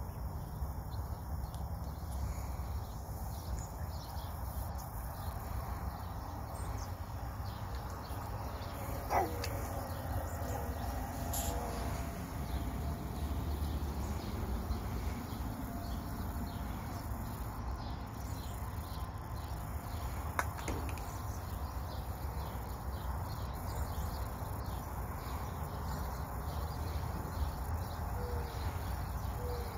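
Outdoor ambience: a steady low rumble under a continuous fine insect pulsing, with a few short bird calls and a couple of faint knocks.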